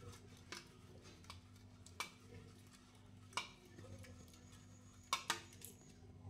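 Peeled boiled eggs rolling and tapping against a steel bowl as it is swirled to coat them in spice powder: about half a dozen faint, light clicks spread unevenly over several seconds.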